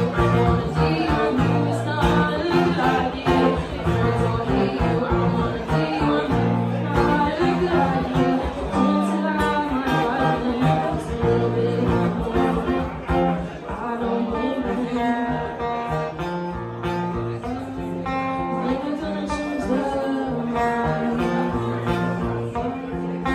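A woman singing with a man playing acoustic guitar, an acoustic song performed live.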